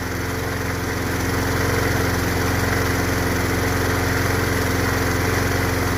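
Briggs & Stratton 190cc single-cylinder engine on a 21-inch Yard Machine push mower running steadily, just fired on a squirt of starting fluid after refusing to start on its own.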